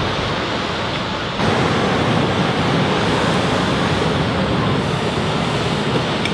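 Steady rushing background noise with no distinct source, stepping up in level about a second and a half in.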